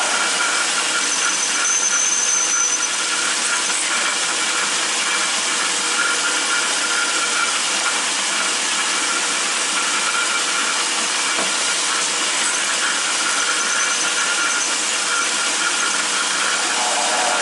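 Atlas 10-inch metal lathe running steadily while a drill bit fed from the tailstock bores into the end of a backhoe pin turning in the chuck. There is a brief thin high squeal a second or two in.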